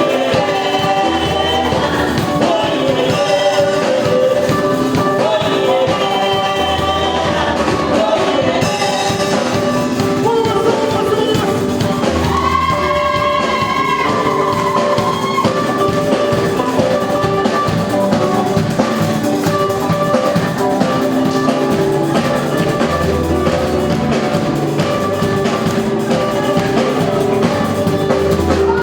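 Live band music with a drum kit and bass, and a singing voice carrying the melody.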